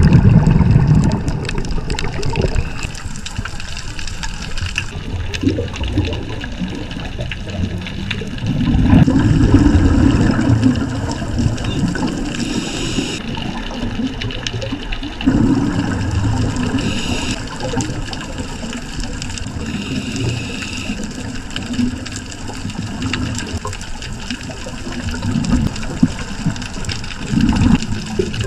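Underwater sound heard through a camera housing: a scuba diver's exhaled bubbles swell up every several seconds over a steady watery rush, with short hisses between them.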